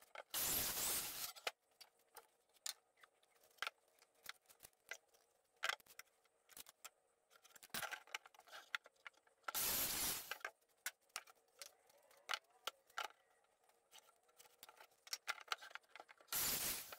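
Sheets of 3/4-inch plywood being slid and shuffled across a wooden saw table: three brief scraping bursts of about a second each, a few seconds apart, among scattered light knocks and clicks of handling.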